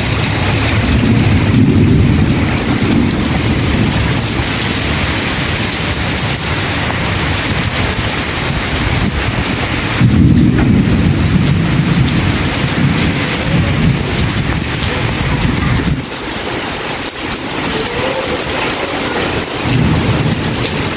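Heavy monsoon rain pouring down steadily. Deep rumbles swell up several times: about a second in, around ten seconds in, and near the end.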